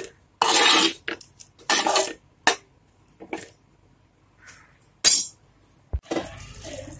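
Metal spoon scraping and knocking against a cooking pot in several short strokes as keema and peas are stirred.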